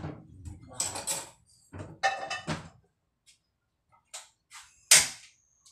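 Cookware and kitchen utensils being handled: clattering in the first half, then a few light clicks and one sharp, loud clank near the end.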